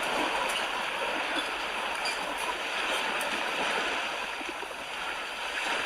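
Steady rushing of running water, even throughout.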